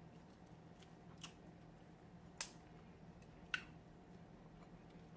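Quiet close-up eating of battered fried lobster: three short sharp clicks from the mouth and the crisp food, about a second apart, over a faint steady hum.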